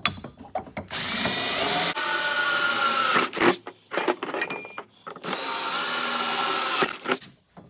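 Ridgid 18-volt cordless drill boring a quarter-inch hole through metal square tubing, in two runs of about two seconds each. The motor whine rises as it spins up. Short knocks come between the runs as the bar is shifted.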